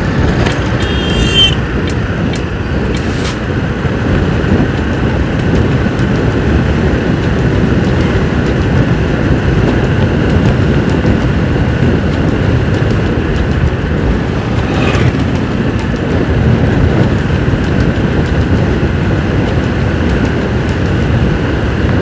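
Motorcycle running at steady cruising speed, its engine mixed with road and wind noise on the handlebar-mounted microphone.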